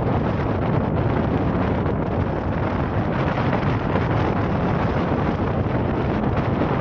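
Steady rush of wind buffeting the microphone on the deck of a moving ferry, with the ship's low running drone and sea noise beneath it.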